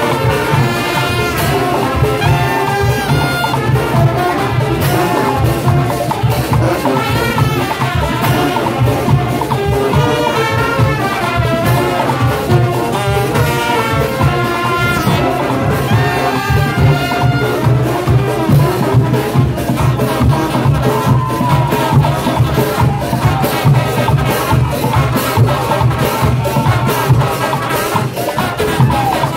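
Marching brass band playing loudly: sousaphones, trumpets and baritone horns in a dense brass sound over a steady beat of percussion hits.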